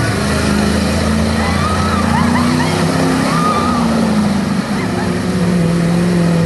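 Lifted pickup truck's engine running at low revs as it creeps around a dirt arena, the pitch rising and falling a little. High shouts and whoops from people sound over it a couple of seconds in.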